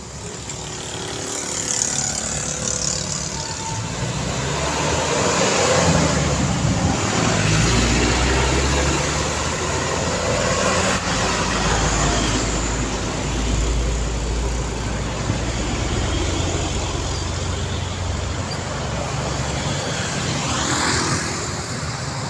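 Busy road traffic with vehicles passing one after another and a deep engine rumble from heavy vehicles through the middle of the stretch.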